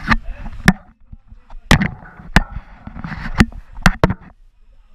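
Hands and feet knocking on the steel rungs of a high-dive tower ladder during the climb: about seven sharp clanks half a second to a second apart, with rustling noise between them.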